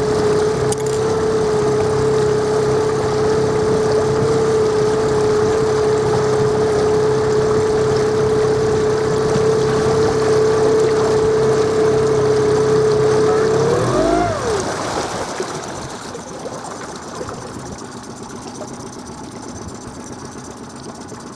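A sailboat's inboard engine running steadily under power with an even drone. About 14 seconds in it revs briefly up and falls back, and the engine sound then drops to a noticeably quieter level as the throttle comes down.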